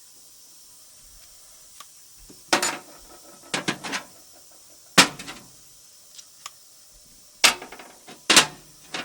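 Metal engine parts, the main bearing caps and thrust washers, clanking and knocking as they are handled and set down. There are about eight sharp clanks at uneven intervals, the loudest about five seconds in and near the end.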